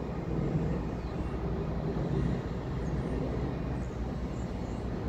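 Steady low rumble of distant vehicle noise, with a few faint high chirps over it.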